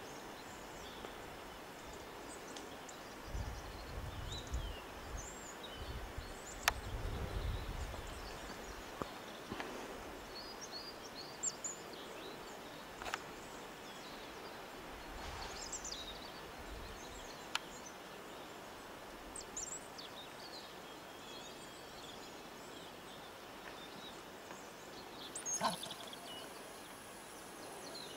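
Rural outdoor ambience: a steady hiss with scattered short, high bird chirps and a few sharp clicks. A low rumble comes between about three and eight seconds in, and a louder short sound near the end.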